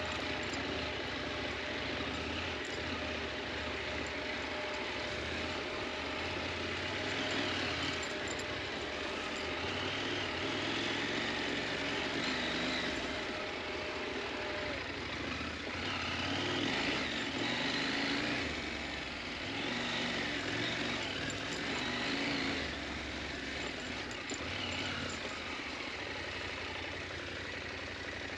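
KTM 890 Adventure motorcycle's parallel-twin engine running off-road, its sound swelling and easing several times as the throttle changes.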